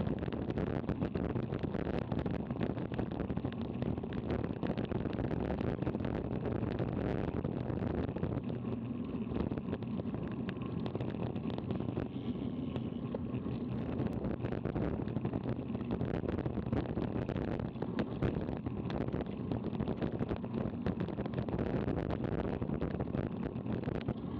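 Wind buffeting the microphone of a bike-mounted action camera while cycling along an asphalt road, a steady rumbling rush with frequent small clicks and rattles from the bike and road.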